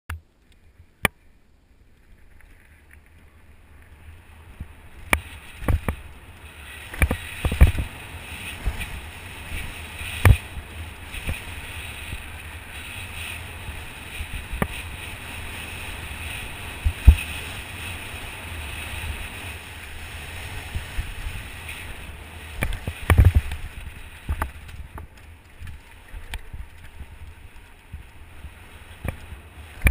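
Mountain bike rolling down a dirt trail: a steady rush of tyre noise and wind that builds over the first few seconds as it picks up speed, with a deep rumble under it. Sharp knocks and rattles come as the bike hits bumps, the loudest several times in the middle.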